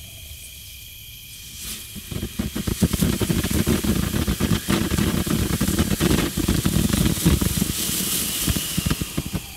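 Cutting Edge "Aloha Time" 200-gram firework fountain: after a short lull it starts spraying again about two seconds in, hissing with dense rapid crackling, and dies down just before the end.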